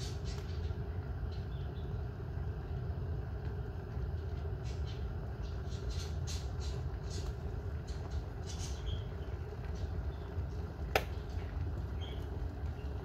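Glass electric kettle at a full rolling boil: a steady low rumble with scattered crackling ticks of bursting bubbles. Near the end, one sharp click as the kettle's thermostat switches it off.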